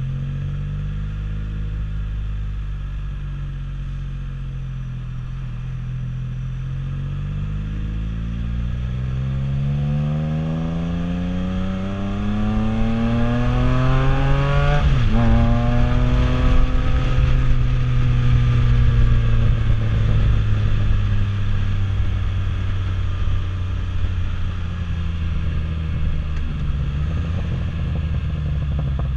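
Can-Am Spyder F3-S's Rotax 1330 cc inline-three engine, heard from the rider's seat while under way. It runs steady at first, then climbs in pitch for about nine seconds as the machine accelerates. About halfway through the pitch drops sharply at a gear change, then the engine settles and slowly eases off at cruising speed.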